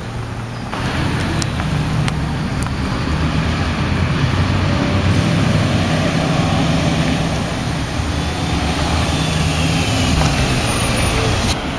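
MAN Lion's City city bus pulling away and driving past, its engine's low, steady note with tyre noise growing louder as it comes near.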